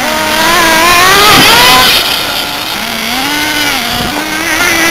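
Radio-controlled car's small engine revving at high speed. Its pitch climbs for the first couple of seconds, drops, rises again around the middle, dips about four seconds in, and climbs once more near the end.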